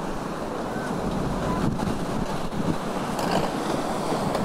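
Wind rushing over the microphone together with the wash of ocean surf, a steady noisy rush.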